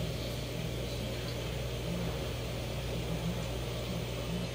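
Steady low electric hum from running aquarium equipment, with a faint hiss.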